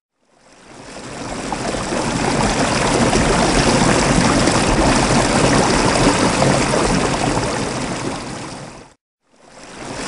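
Rushing water sound effect: a steady wash of water that fades in over the first two seconds, holds, cuts off suddenly about a second before the end, then fades back in.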